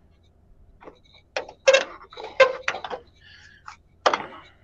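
Handling noise from a phone being moved around a car door: a run of irregular clicks and light knocks, with one more near the end.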